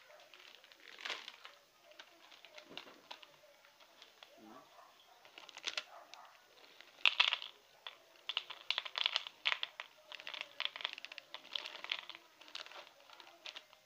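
Plastic snack wrapper crinkling as it is handled: rapid, irregular crackles that grow dense from about halfway in.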